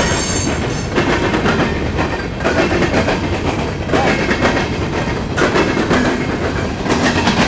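Covered hopper cars of a freight grain train rolling past close by: a steady heavy rumble of steel wheels on rail, with a clickety-clack each time a set of wheels crosses a rail joint, roughly every second or so. A brief high metallic squeal sounds in the first second.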